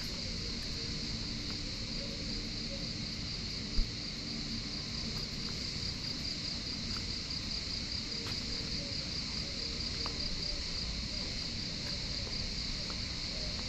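A steady, high-pitched insect chorus, with a low rumble beneath it and one brief thump about four seconds in.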